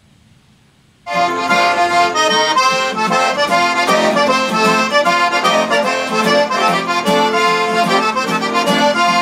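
Accordion-led traditional music with a regular beat, starting about a second in after a brief low hush.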